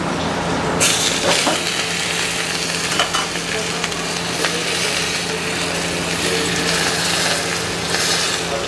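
Hot ghee tadka poured over a bowl of mutton nihari, sizzling as it hits the green chillies and ginger. The sizzle starts sharply about a second in and keeps up steadily over a low hum.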